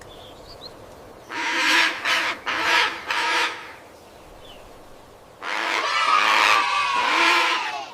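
Parrot squawking: a burst of harsh calls, a pause, then a longer stretch of squawking near the end, over a faint steady hiss.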